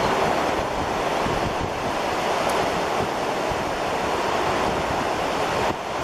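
Steady rush of ocean surf washing onto a sandy beach.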